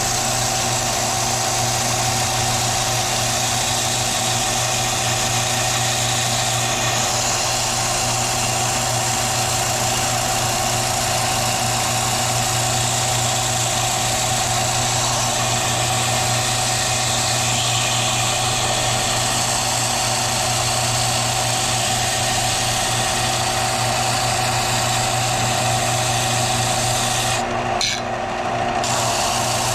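Belt sander running steadily with a block of hickory pressed against the abrasive belt, grinding the wood into fine sanding dust. The grinding drops out briefly near the end while the motor keeps humming.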